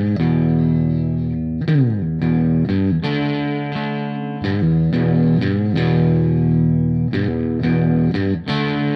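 Rock background music led by distorted electric guitar playing chords over bass, with a downward slide about two seconds in.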